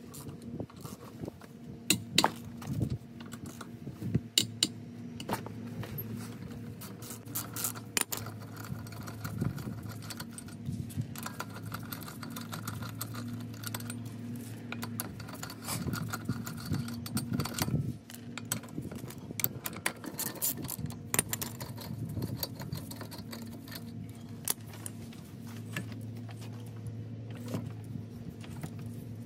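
Metal clinking and jangling of lug nuts and a lug-nut tool as the nuts are turned off a car wheel by hand. There are scattered sharp clicks over a steady low hum.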